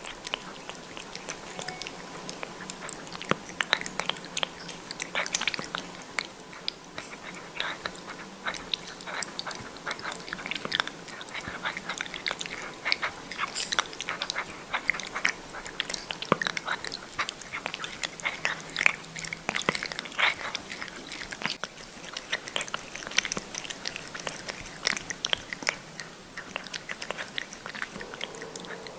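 A cat licking and mouthing at the tip of a feeding syringe held to its mouth: a steady, irregular run of quick small licking and smacking clicks.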